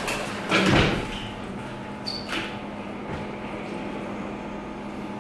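A door being opened and handled: a loud knock and rattle about half a second in, then a brief high squeak and a click around two seconds, over a steady low hum.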